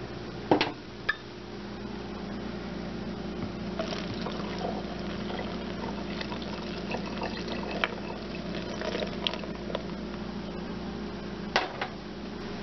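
Hot spiced apple cider being poured from a pot through a plastic colander, splashing steadily, over a steady low hum. Two sharp knocks, one just after the start and one near the end, are the loudest sounds.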